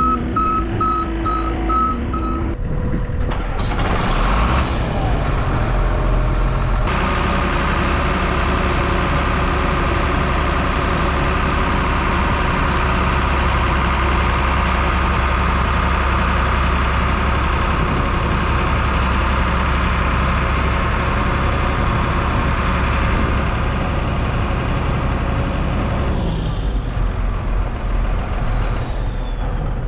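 A heavy vehicle's reversing alarm beeps about twice a second for the first few seconds. Then an engine revs up with a high whine that holds steady for about twenty seconds and winds down near the end.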